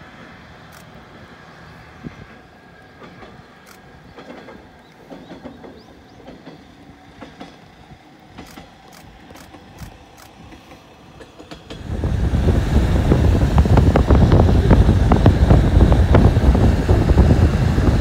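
A distant diesel railcar running, faint, with light scattered clicks of its wheels on the track. About twelve seconds in it cuts suddenly to loud, steady road and wind noise from inside a moving road vehicle.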